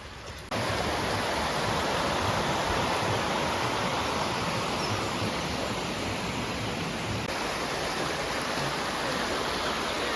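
Fast-flowing river water, a steady rush that cuts in suddenly about half a second in.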